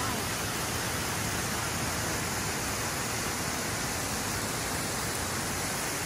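Creek water spilling over a low weir, a steady rushing.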